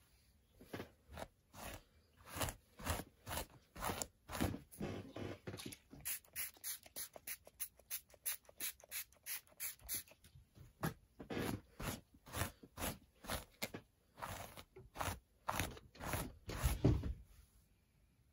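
Hairbrush pulled through a doll's hair in repeated quick strokes, about two a second, with short pauses between runs.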